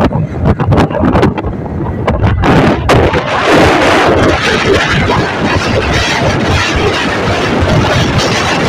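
Loud wind buffeting a handheld phone's microphone on a moving motorcycle, gusty at first and filling into a steady rush about three seconds in.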